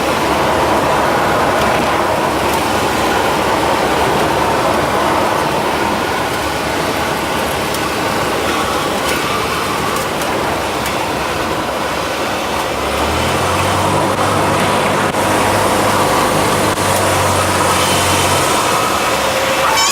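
Cessna 172's piston engine and propeller droning steadily, heard inside the cabin in flight. About two-thirds of the way in, a deeper hum joins for a few seconds and then stops.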